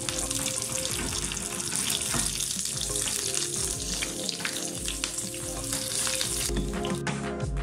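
Hot oil sizzling and crackling in a small frying pan as cumin seeds, curry leaves, whole dried red chillies and green chillies fry for a tarka (tempering).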